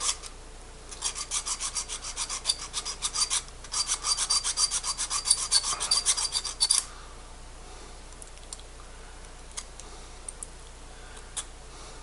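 A fine double-sided file rasps on the contact points of a room space-heater thermostat, dressing the welded contacts flat and parallel. It goes in quick, even strokes, about five a second, in two runs with a short pause between them, and stops a little past halfway. A few faint clicks follow.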